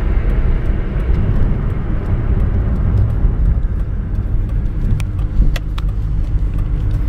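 Car driving along: a steady low rumble of road and engine noise, with a few light clicks about five seconds in.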